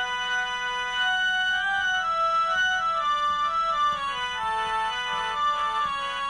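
Instrumental Kashmiri tune on an organ-like keyboard instrument: a melody of short held notes stepping up and down.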